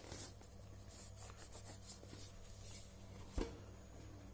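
Cardboard phone box rubbing and scraping in the hands as it is turned and its lid worked loose, with a soft knock about three and a half seconds in.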